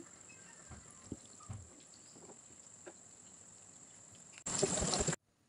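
Breaded potato tikkis shallow-frying in hot oil: a faint sizzle with a few light knocks and a steady faint high whine. Near the end a loud burst of sizzling hiss lasts under a second and cuts off suddenly.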